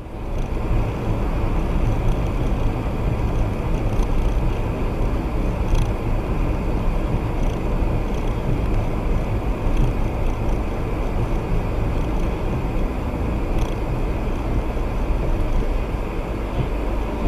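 Steady road noise inside a moving car driving on a wet road in the rain.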